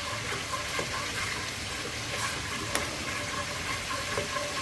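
Oil-and-flour roux sizzling in a pan on the stove as it is stirred with a spoon, with small scrapes and clicks of the spoon against the pan and one sharper click partway through.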